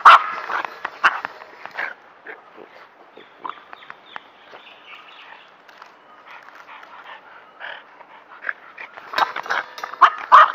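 Dogs barking: a loud burst of sharp barks in the first two seconds and another near the end, with fainter scattered noises between.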